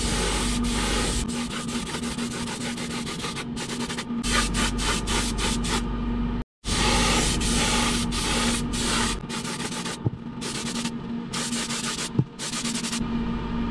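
Airbrush spraying the first coat of paint in many short on-off bursts of hiss in quick succession, over a steady low hum. The sound drops out for a moment about halfway through.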